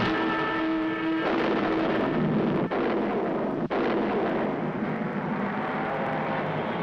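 Cartoon sound effect of a rocket-propelled bullet car flying past: a steady, loud rushing noise of its exhaust. A held, many-toned sound runs under it for the first second and then stops abruptly.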